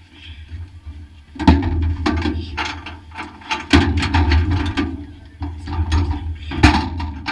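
Small 1-litre stock car engine idling steadily, with irregular sharp clicks and clatters from inside the stripped car over it, the loudest about one and a half seconds in and again near the end.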